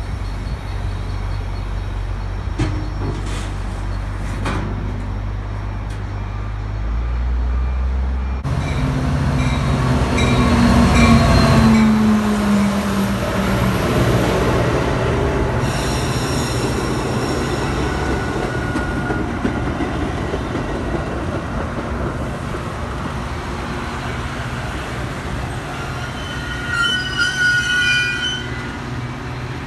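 Metra bilevel commuter train passing close at speed: a low hum at first, then a sudden loud rumble of wheels on rails about eight seconds in, loudest a few seconds later with a falling tone as the head of the train goes by, and short high wheel squeals near the end.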